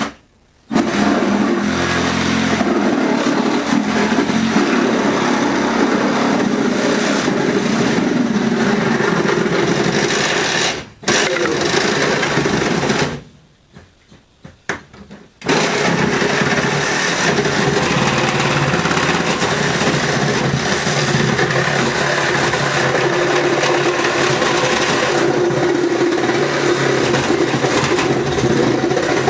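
Cordless power tool motor running hard under load, cutting into an old refrigerator's metal near the condenser. It runs for about twelve seconds, stops, gives a few short spurts, and then runs steadily again.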